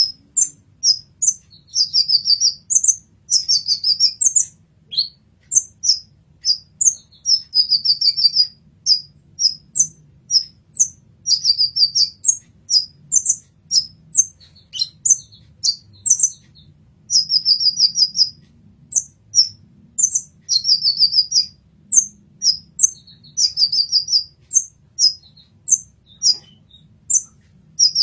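Kolibri ninja sunbird singing: a rapid string of short, high, sharp chirps broken by several quick trilled runs.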